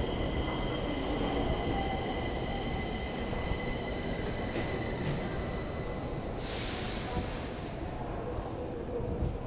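Subway train coming into the station and slowing to a stop, with a low running rumble and steady high-pitched squealing from the wheels and brakes. A burst of hiss comes about two-thirds of the way through.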